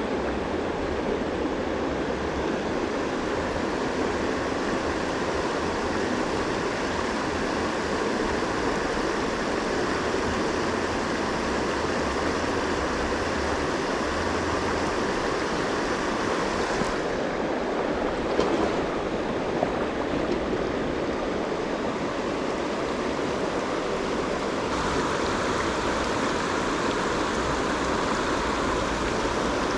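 River rapids rushing steadily in a shallow riffle. The tone of the water shifts twice, about halfway through and again later, and there are a couple of brief knocks a little past halfway.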